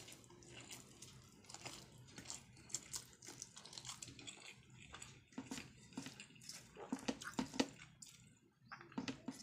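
Wet chewing and lip-smacking of a man eating rice with his hand: a steady run of short, moist mouth clicks and smacks, with a brief pause near the end.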